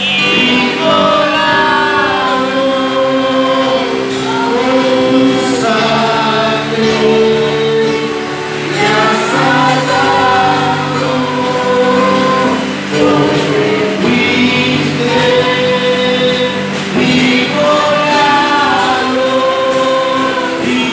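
Gospel worship music: a group of voices singing a slow, flowing melody over steady held accompaniment chords.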